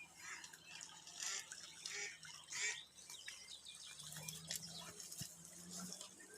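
A live decoy duck quacking, several loud calls in the first half, while songbirds chirp throughout.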